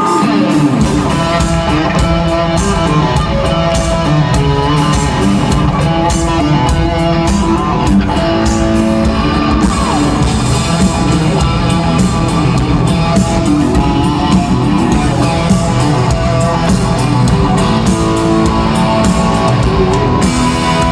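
Live rock band playing an instrumental passage, an electric guitar riff over drums that come in about a second in.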